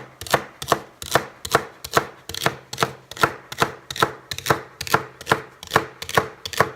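Knife chopping celery on a cutting board in steady, evenly spaced strokes, about two and a half a second.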